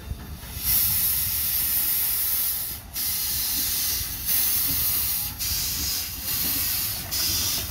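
1925 Vulcan steam locomotive pulling away, loud steam hissing from around its cylinders in long pulses broken by short gaps about once a second, over a low rumble of the moving engine.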